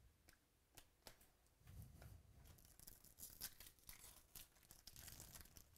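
Faint crinkling and tearing of a foil trading-card pack wrapper being torn open, after a few light clicks of cards being handled.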